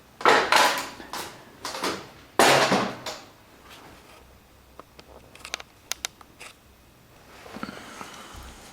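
Upper plastic casing of a Canon Pixma iP4500 inkjet printer being lifted off: three loud rubbing, rattling bursts of plastic in the first three seconds, then a few light clicks.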